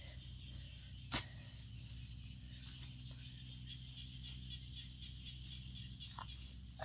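Metal digging hoe striking into muddy ground: one sharp strike about a second in and a fainter one near the end, over a steady low background hum.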